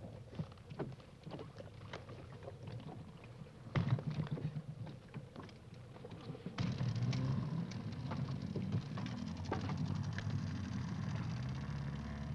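Small boat on choppy water: water slapping with scattered knocks, then a steady low rumble that comes in about halfway through and lasts to the end.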